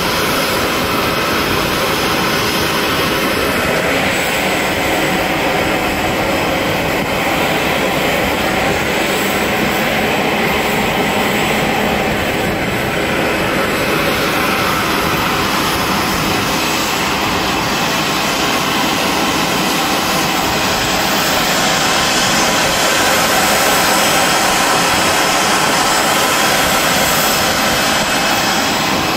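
Jet turbine noise on an airport apron: a loud, even rush with thin steady whining tones running through it, swelling slightly about three-quarters of the way through.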